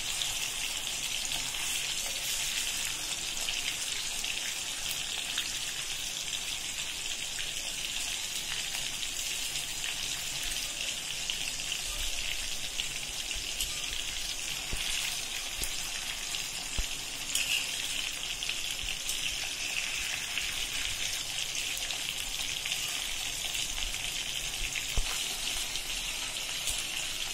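Masala-coated fish steaks shallow-frying in a little hot oil in an iron pan, a steady sizzle, with a couple of brief clicks later on.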